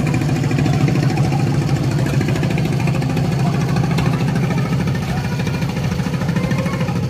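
Small boat engine idling steadily with a fast, even putter, easing off slightly near the end.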